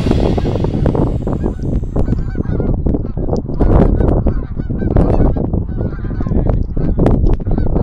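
Geese honking: many short honks and clucks in quick succession.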